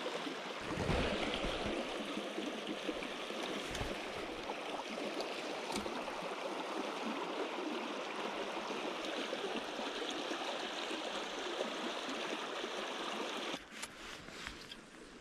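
River water rushing over rocks in a fast riffle, a steady even roar, with a few low thumps early on. A little over a second before the end the rushing drops off suddenly to a quieter wash of flowing water with a few light clicks.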